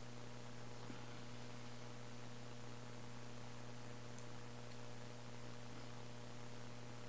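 Steady low electrical mains hum over a faint hiss, with no handling sounds standing out.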